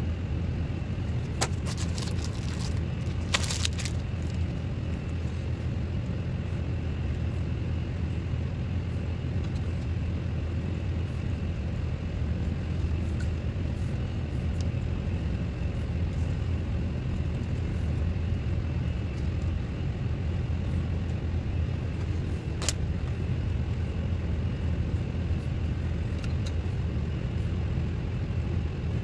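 A steady low rumbling hum that does not change, with a few brief sharp clicks as the plastic syringe and jar are handled: several in the first few seconds and one more near the end.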